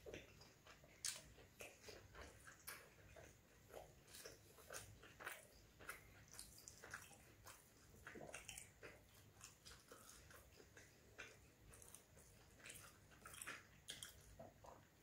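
Quiet, close-up eating sounds of roti and curry eaten by hand: chewing with irregular wet smacks and clicks, several a second.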